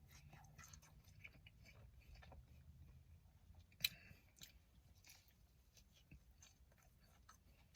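A person chewing and biting fried fast food up close: faint, with scattered small crunches and clicks, and one sharper crunch about four seconds in.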